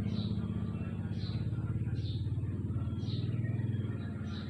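An engine idling steadily with a low, rapidly pulsing hum. A short high chirp that falls in pitch repeats about once a second above it.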